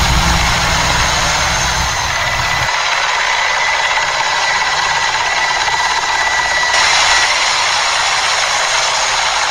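Attack-helicopter sound effect: a steady rotor and turbine noise with a thin, steady whine. Its deep rumble cuts off suddenly about three seconds in.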